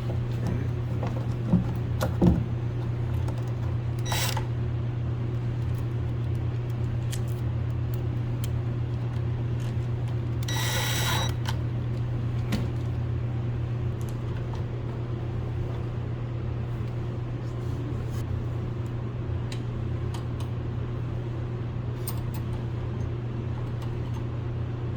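A steady low machine hum, with a few scattered clicks and knocks and a hiss about a second long near the middle.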